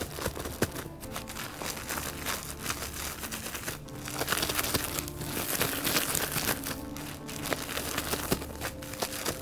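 A gallon plastic zip-top bag crinkling as it is shaken and kneaded to mix the dry cake-mix powders inside. Background music plays underneath.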